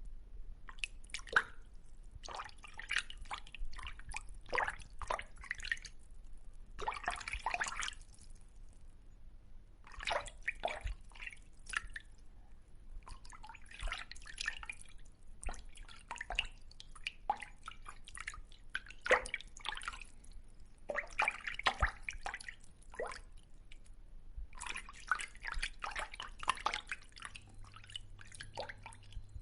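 Fish sound effect: wet splashing and dripping water in short, irregular clusters of clicks, with brief pauses between them.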